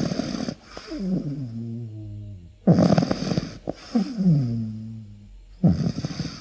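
Snoring in a steady rhythm: a rattling snore about every three seconds, each followed by a pitched breath that slides down in tone.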